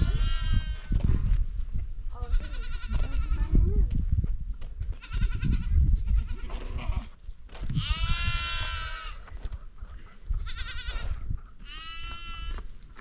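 Goats bleating repeatedly: about six separate wavering, high-pitched calls, the loudest a little past the middle, over a low rumbling noise.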